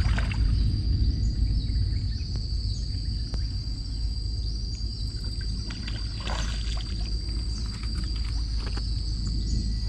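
Mangrove creek ambience: a steady low wind rumble on the microphone under a constant high insect drone, with a few faint clicks.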